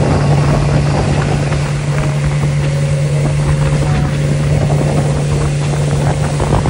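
Outboard motor on a small aluminium boat running steadily at speed, a constant low hum, with water rushing past the hull.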